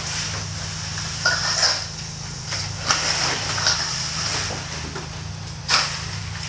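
Gauge rake scraping and pushing epoxy-coated pebbles across a concrete floor: rough rasping strokes with a few sharp clicks, over a steady low hum.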